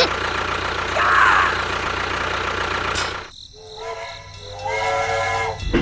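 A small motor running steadily, cut off abruptly about three seconds in; near the end a short held tone with several overtones sounds for about a second.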